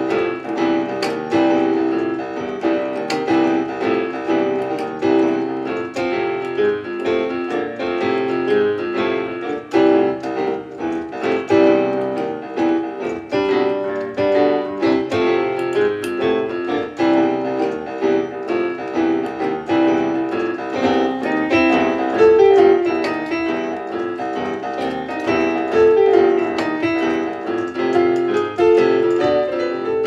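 Solo piano music, a busy, steady stream of notes.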